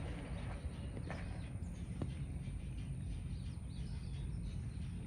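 Quiet outdoor background with faint, scattered bird chirps over a low steady hum, and a couple of faint clicks about one and two seconds in.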